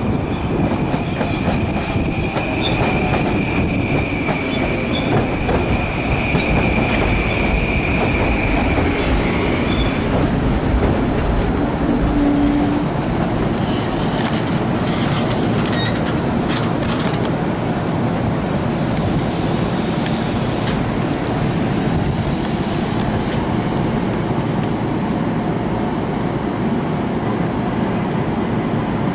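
Long Island Rail Road train running through the station with a steady rumble and wheel clatter, and a high steady wheel squeal for about the first ten seconds.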